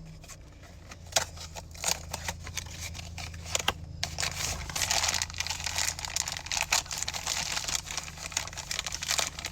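Blind-box packaging being torn open and unwrapped by hand: crinkling and rustling with sharp snaps, a few at first and then dense and busy through the second half.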